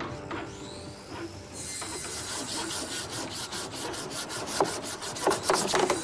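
Hand sanding of a wooden cabinet: sandpaper scratching back and forth in an even rhythm of about five strokes a second, starting a couple of seconds in. A few louder knocks against the wood come near the end.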